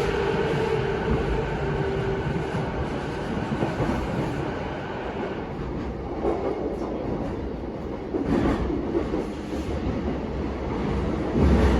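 JR E233-7000 series electric train running, heard on board: a steady motor hum with level tones that fades out over the first few seconds, leaving the rumble of wheels on track, with a few clacks over rail joints about six, eight and eleven seconds in.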